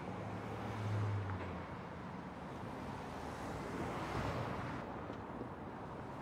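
Street traffic: cars driving past, tyres and engines, with a low engine hum near the start and a car going by close about four seconds in.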